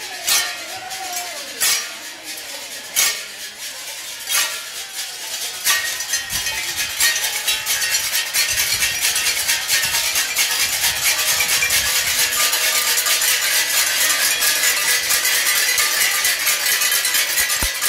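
Rhythmic percussion: single sharp strikes about once every second and a half, then from about six seconds in a dense, fast clatter of strikes that builds up and keeps going, with a steady high tone over it.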